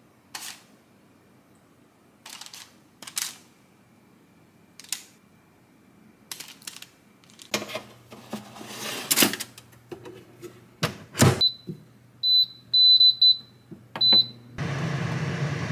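Chicken pieces set down one by one with soft taps on a paper liner, then a metal wire rack scraping and clattering as it slides into an air fryer oven, and a knock about 11 seconds in. The oven's control panel gives a string of short high beeps as the temperature is set, and then its fan starts with a steady whir and low hum near the end.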